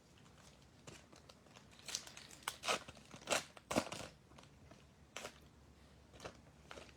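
Wrapper of a trading-card pack crinkling and tearing as it is ripped open: a faint run of short crackly bursts, thickest in the first few seconds, then a few scattered crinkles.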